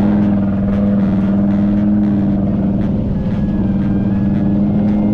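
An off-road SUV's engine running steadily at constant revs while driving, a loud, even drone with an unchanging pitch.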